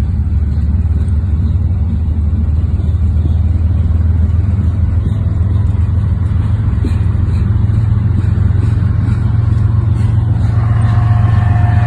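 BNSF freight train of covered hopper cars rolling past close by: a steady, loud low rumble of wheels on rail with faint clicking. A steady high whine joins near the end.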